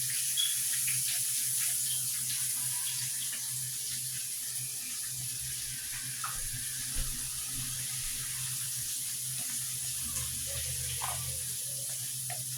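A steady rushing noise with a low hum underneath, and scattered light clicks and taps of handling in a kitchen.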